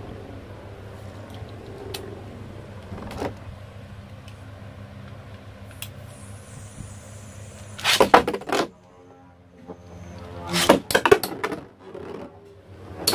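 Toy battle spinning tops whirring steadily in an arena, then clashing with loud rattling hits about eight seconds in and again in a quick run around ten to eleven seconds.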